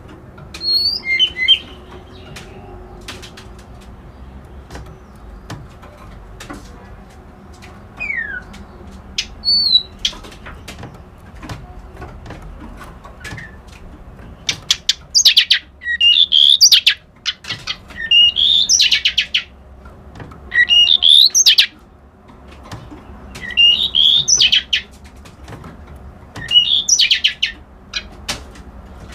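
A kerak basi alis putih songbird singing in separate phrases of harsh, rapid chattering notes mixed with whistled glides. The phrases are sparse at first and become loud and frequent in the second half.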